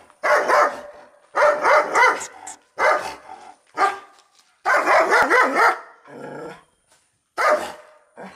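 Dog barking angrily in rapid volleys of several barks, about seven volleys with short pauses between them.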